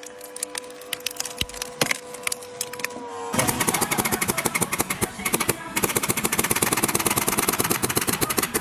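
Wood crackling and splitting as a log is forced apart by a splitter wedge, over a steady hum. About three seconds in this gives way to a pneumatic staple gun firing rapidly into an upholstered chair frame, a fast, loud run of sharp clacks.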